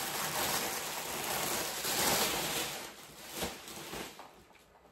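Crinkling and rustling of a plastic shipping bag being handled and searched through, fading after about three seconds, with a couple of light knocks near the end.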